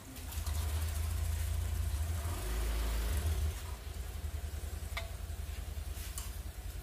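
Watery spice sauce sizzling and bubbling in an aluminium wok as a metal spatula stirs it, with two light taps of the spatula on the pan in the second half. A heavy low rumble runs underneath, loudest for the first three seconds or so and then weaker.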